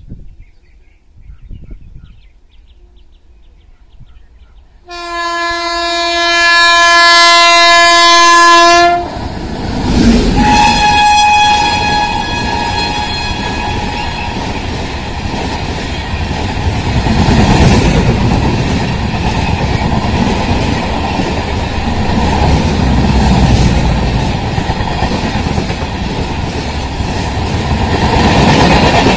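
A WAP 7 electric locomotive sounds its horn in one long loud blast about five seconds in, then a shorter, fainter horn note as it rushes past. The passenger coaches follow at speed with a steady rumble and the clickety-clack of their wheels over the rail joints.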